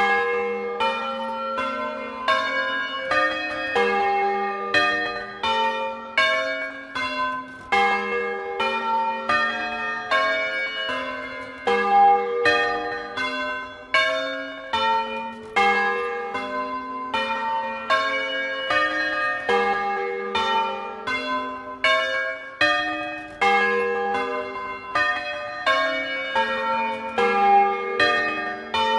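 A set of tuned bronze church bells cast by Francesco De Poli in 1994, swung by hand and rung in the Bolognese doppio style: a continuous stream of overlapping clapper strokes on several different pitches, each note ringing on under the next.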